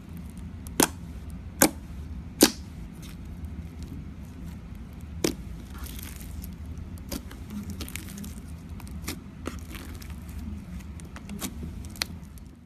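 Hands kneading and stretching pink foam-bead slime, with a steady run of small clicks and crackles and a few sharp pops, the loudest three in the first two and a half seconds and another about five seconds in.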